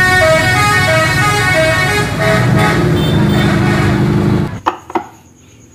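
A tour bus's multi-tone horn sounds a repeating pattern of notes over engine and traffic noise for about four and a half seconds. Then it cuts off suddenly, leaving a few light clicks.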